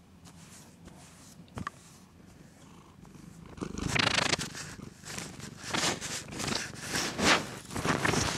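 Domestic cat purring close to the microphone, starting about three and a half seconds in, in pulses of about one and a half a second. Its fur brushes against the camera as it rubs its face on it.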